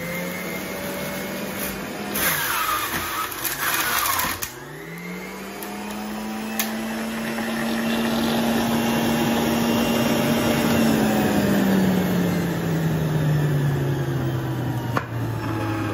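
Electric centrifugal juicer's motor whining as fruit is pressed down its feed chute. About two seconds in, the pitch drops and a loud grinding rattle comes for a couple of seconds while the fruit is shredded. The motor then climbs back up to speed, holds steady, and slowly sags lower in pitch near the end.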